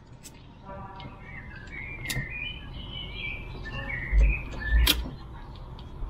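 Small birds chirping and twittering in the background, with a few sharp clicks and two dull thumps between four and five seconds in.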